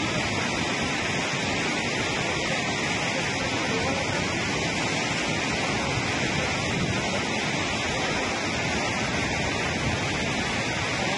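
Steady rushing of a heavy flood release: water pouring through a dam's open spillway gates and crashing into the river below, an even, unbroken noise.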